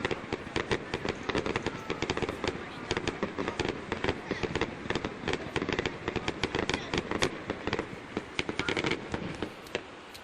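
Fireworks display: a rapid, continuous barrage of bursts and crackling reports, many each second, thinning slightly near the end.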